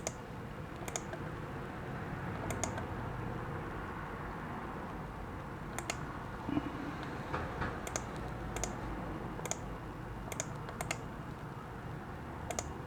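Faint, irregularly spaced light clicks, about a dozen, over a low steady background hiss.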